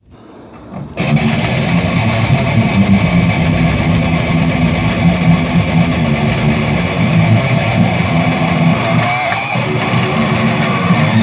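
Intro music: a loud electric-guitar riff in a metal style that kicks in sharply about a second in.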